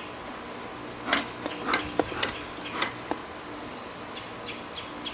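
Honeybees buzzing as a steady hum around an open hive, with a handful of sharp clicks and knocks from handling, most of them between one and three seconds in.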